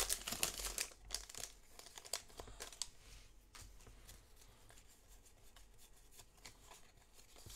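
Foil wrapper of a Pokémon TCG booster pack crinkling and tearing as it is opened, loudest in the first second. After that, faint rustling and light crackles as the cards are pulled out and handled.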